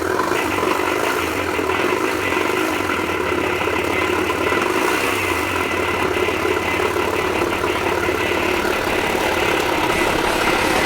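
Suzuki Let's 4 scooter's small single-cylinder four-stroke engine running steadily at idle with a strong abnormal mechanical noise, which the mechanic puts down to the crankshaft bearing.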